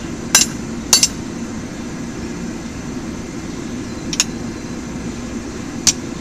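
Hammer blows on a hot 5/8-inch round mild steel tong blank on the anvil, straightening it: two ringing strikes in the first second, a pause, then single strikes about four seconds in and near the end, over a steady low roar.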